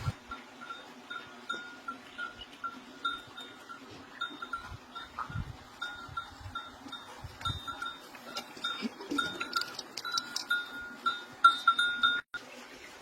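Livestock bell clanking repeatedly in short, uneven strokes, a few a second, growing louder towards the end.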